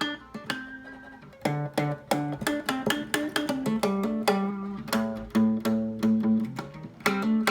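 Guitar played blues-style, picked single notes and partial chords in an uneven rhythm, with a sparser stretch about a second in and held low notes near the middle.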